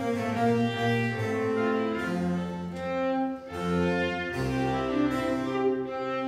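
Live string ensemble of two violins, viola, cello and double bass playing the introduction to an 18th-century classical opera, a lively bowed melody over a moving bass line.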